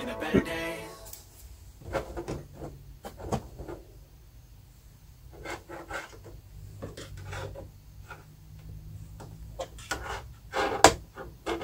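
Scattered light knocks, clicks and rubbing as seedling containers and their cover are handled and set in place, with a louder clatter near the end.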